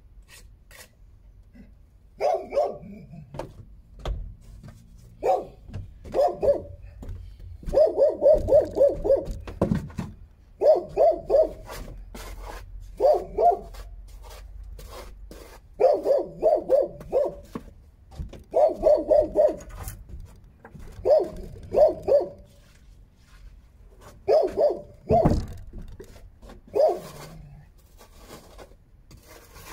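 A dog barking in repeated bouts of two to five quick barks, with light scraping and tapping between them.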